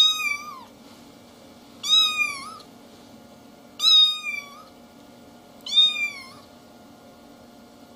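A young kitten meowing four times, about two seconds apart: short, high-pitched calls that each drop in pitch at the end.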